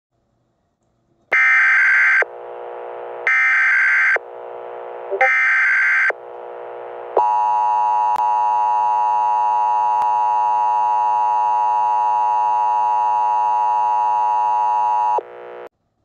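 Emergency Alert System tones: three bursts of SAME header data tones, each about a second long with a quieter hiss between them, then the steady alert attention tone held for about eight seconds, cutting off with a brief quieter tail.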